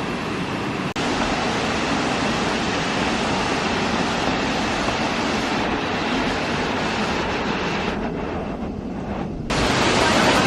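Steady rushing roar of a waterfall, shifting abruptly about a second in and twice more near the end.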